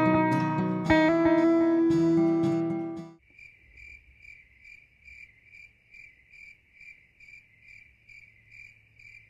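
Guitar music with plucked notes, cutting off about three seconds in. It is followed by a quieter, steady chirping of an insect, about two chirps a second.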